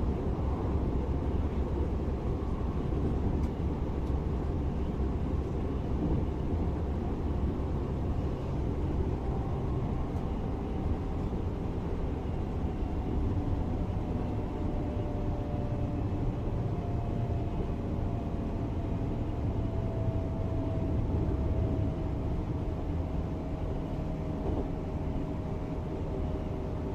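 DB class 425 electric multiple unit running: a steady rumble of running noise, with a thin electric whine from the traction drive drifting slowly down in pitch from about a third of the way in.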